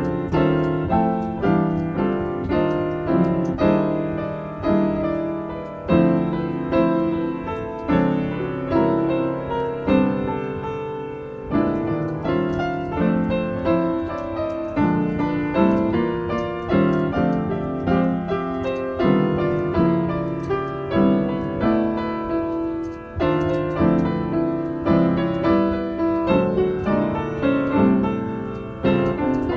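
Piano improvisation: chords and melody struck every half-second or so and left to ring, over a low bass line, with the chord changes made up on the spot.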